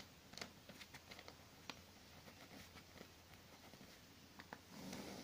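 Faint scratching and small ticks of a pen writing on a sheet of paper.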